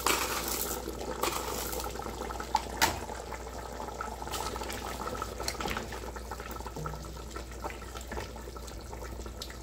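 Rib broth simmering and bubbling in an open aluminium pressure cooker, with a few light knocks as herbs go in and a spatula stirs near the end.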